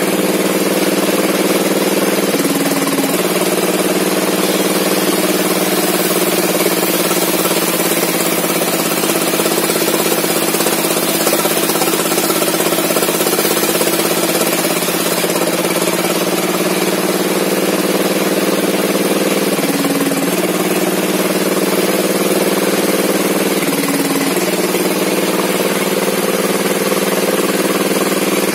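Small engine of a log saw running steadily at high speed, its note shifting briefly a few times, about 3, 20, 24 and 28 seconds in.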